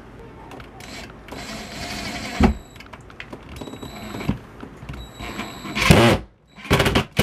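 Cordless drill driving a long screw through a pine board into a wall stud, its motor whining in several short runs with a knock partway through.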